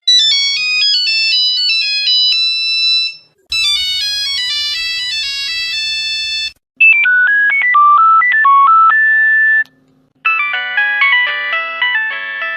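Nokia mobile phone ringtones played one after another: four different short electronic melodies of about three seconds each, with a brief gap between them, the last still playing at the end.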